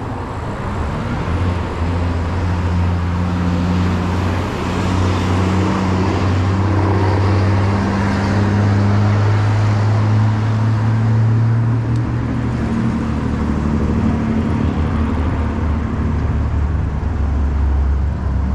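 A motor vehicle's engine running with a steady low hum that shifts slightly in pitch a few times, over street traffic noise.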